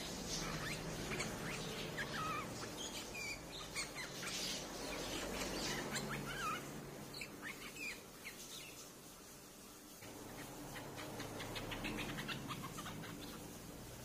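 Bulbuls calling: a string of short chirps and slurred whistled notes, with a quieter lull around the middle, then a run of quick chirps toward the end.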